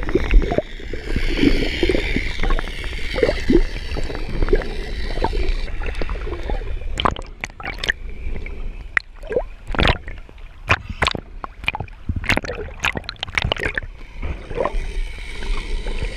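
Underwater sound picked up by an action camera in its waterproof housing: muffled water movement, with a run of sharp clicks and knocks from about seven seconds in.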